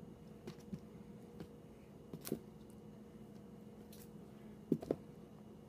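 Sealed, shrink-wrapped LP record jackets being handled and swapped: a few soft taps and rustles, a knock about two seconds in, and two sharp knocks close together near the end as an album is set in place. A faint steady hum underneath.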